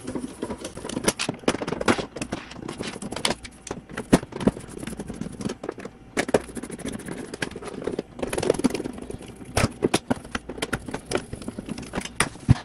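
Screws being taken out of the plastic back casing of a DeLonghi Magnifica ESAM3300 espresso machine with a hand screwdriver: irregular clicks, scrapes and small clinks of the driver, screws and housing.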